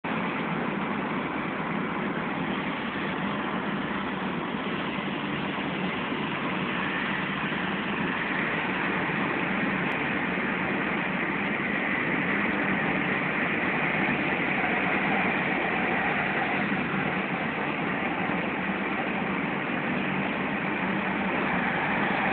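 Steady road and engine noise heard inside the cabin of a moving car, growing a little louder about halfway through.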